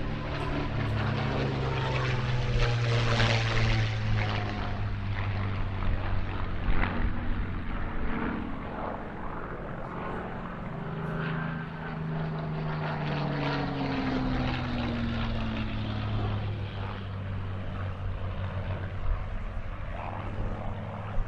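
Rolls-Royce Merlin V12 piston engines of WWII fighters flying past in a display, a steady drone that swells and falls away, the engine note dropping in pitch as aircraft pass, once near the start and again in the second half.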